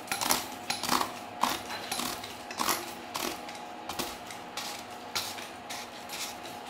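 Perforated metal tube housing of a small electric tester being unscrewed by hand: irregular short metallic clicks and scrapes from the threads and tube turning, about two or three a second.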